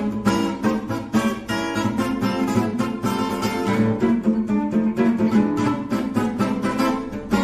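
Background music: acoustic guitar picking a quick run of plucked notes.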